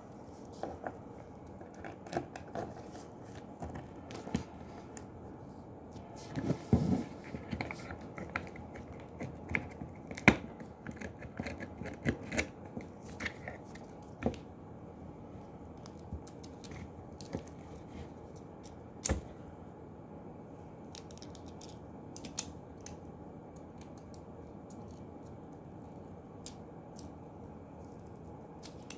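Small clicks, taps and rustles of hands working on the parts of a dismantled DC magnetic contactor, with a louder scraping rustle about six to seven seconds in and a few sharp clicks.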